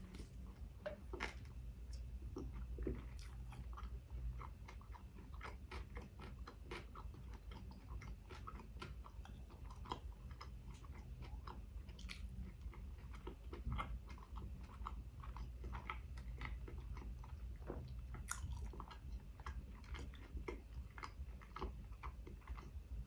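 Close-miked chewing of a chicken shawarma wrap: a dense, irregular run of small wet mouth clicks and smacks over a low steady hum.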